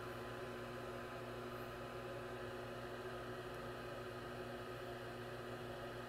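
Gas furnace's draft inducer motor running during the start-up sequence, a steady hum over an even hiss, while the igniter glows and the burners have not yet lit.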